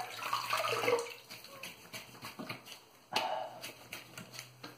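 Water splashing as a face is rinsed by hand at a bathroom sink, loudest in the first second, with scattered small splashes and a brief louder sound about three seconds in. A steady low hum runs underneath.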